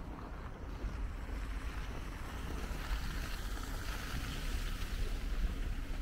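Outdoor street ambience: wind rumbling on the microphone under a steady wash-like hiss that swells and fades about halfway through.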